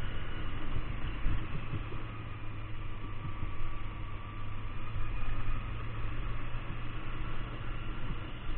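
Kawasaki Ninja 250 motorcycle being ridden, its engine running steadily under a heavy, uneven low rumble of wind on the microphone.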